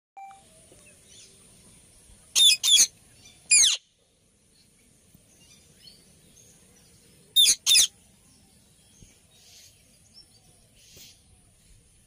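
Indian ringneck parakeets screeching: three loud, shrill calls about two and a half seconds in and two more about seven and a half seconds in. Fainter chirps come between them, over a thin, steady, high-pitched ring.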